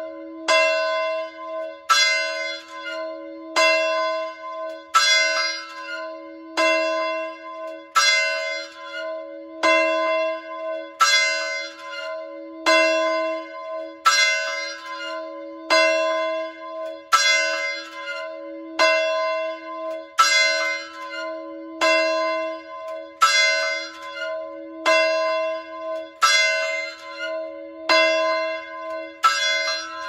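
Large fire alarm bell of the early volunteer-fire-company kind, rung at a steady pace: one stroke about every second and a half, each ringing on into the next, sounding the call-out for volunteers.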